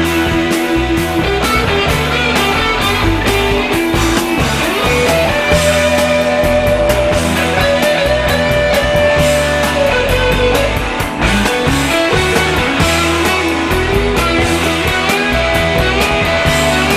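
Background rock music with guitar, bass and drums keeping a steady beat.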